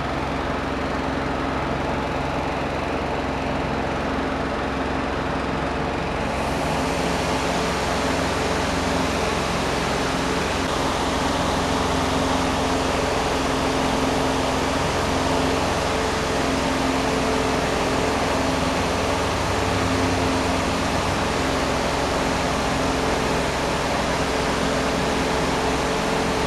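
Electric fan running steadily: a motor hum with a few steady tones under a rushing-air hiss. About six seconds in the hiss becomes brighter and then holds.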